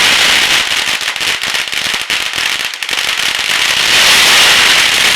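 A long string of firecrackers going off in a dense, continuous crackle of rapid bangs, swelling a little about four seconds in.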